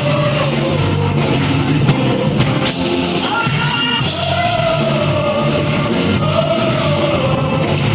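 High school choir singing a gospel praise song with instrumental backing, voices holding long, gliding notes. A few sharp percussive hits come about two seconds in.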